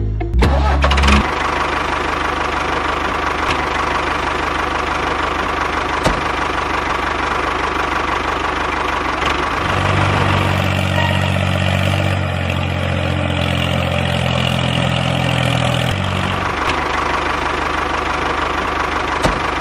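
Tractor engine running steadily, with a heavier, deeper tone from about ten to sixteen seconds in.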